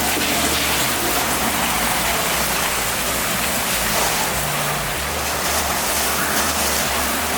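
Hurricane eyewall wind and driving rain buffeting a car: a steady, loud rushing noise with a low rumble beneath.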